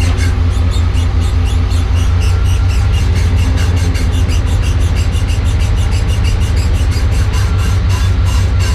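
Driveshaft universal joint on a 1995 Chevrolet Suburban squeaking over and over in time with the shaft's turning, over a steady low drivetrain rumble; the squeak is the sign of a worn U-joint.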